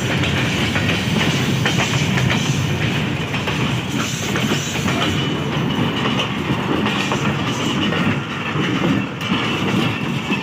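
Goods train wagons rolling past close by, their wheels clattering steadily over the rail joints.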